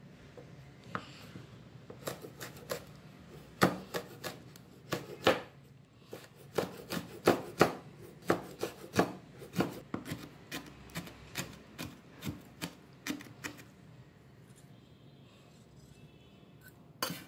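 Knife mincing horn chili peppers on a cutting board: irregular sharp chops, about two a second, that stop a few seconds before the end, with one more knock near the end.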